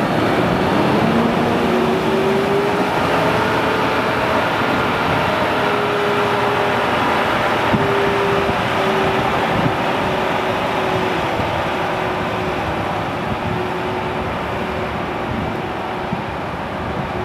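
Heavy tow truck's diesel engine working under load as it tows a semi-trailer truck, droning steadily after climbing in pitch over the first couple of seconds.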